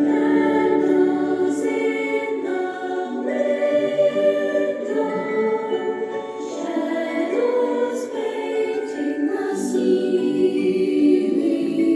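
Background music: choir voices singing slow, sustained chords.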